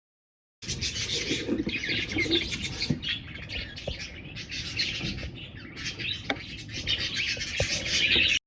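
A flock of budgerigars chattering and chirping continuously, with a few light clicks mixed in. The sound starts abruptly and cuts off suddenly near the end.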